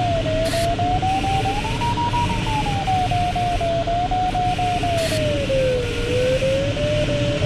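A glider's electronic variometer sounding one continuous tone that slowly wavers and falls in pitch, over steady airflow hiss in the cockpit of a Ventus 2cxT sailplane.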